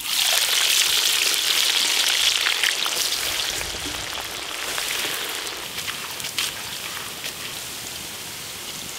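Sliced red onions dropped into hot oil in a large kadai, deep-frying with a loud sizzle that starts suddenly and eases off gradually over several seconds, with scattered crackles.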